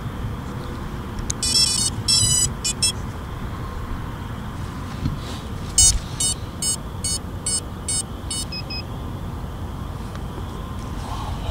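Electronic beeping from FPV drone gear being powered up: a short run of beep tones, then seven evenly spaced beeps about every 0.4 s and two faint short ones. A steady low rumble runs underneath.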